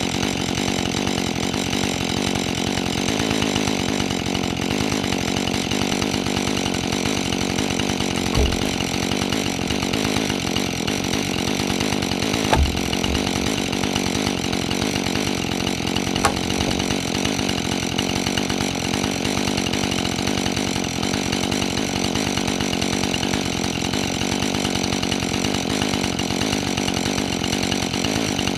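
Husqvarna 435 two-stroke chainsaw running steadily at a constant speed. Short knocks are heard about 8, 12 and 16 seconds in, the middle one the loudest.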